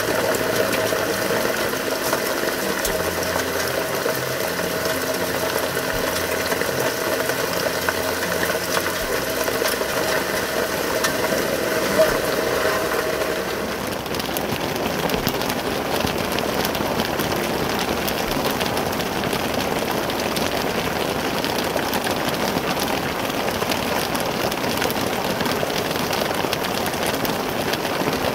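Heavy rain falling steadily. For about the first half a steady hum of several held pitches sits over the rain and then stops, leaving the rain alone; there is one sharp tap about twelve seconds in.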